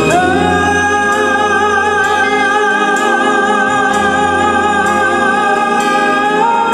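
A singer holding one long high note with vibrato over sustained band accompaniment, moving up a step near the end.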